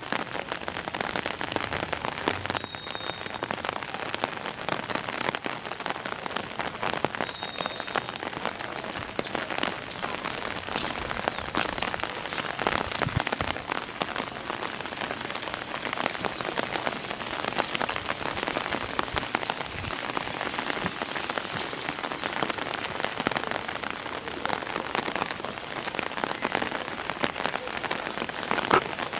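Steady rain falling on wet paving and puddles, a dense, even hiss of drops with fine ticks.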